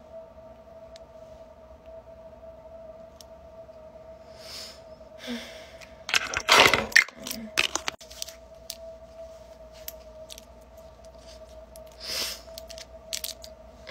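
A steady faint hum, with scattered clicks and short rustling handling noises; the loudest rustle comes about six to seven seconds in.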